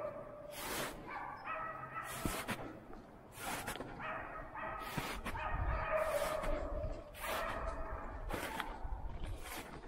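Young West Siberian laikas barking on and on at a moose they have found and are holding at bay. Footsteps crunch through wet spring snow about once a second.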